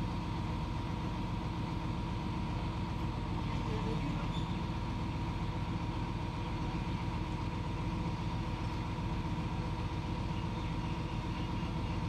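Engine of a truck-mounted crane running steadily at a constant speed.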